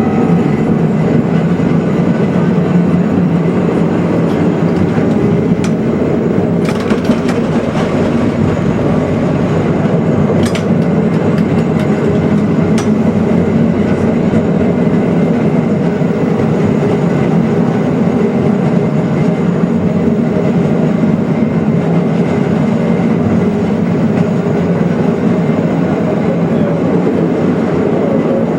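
Milan Peter Witt streetcar running along the rails, heard from aboard: a steady rumble of wheels and motors, with a few sharp clicks along the way.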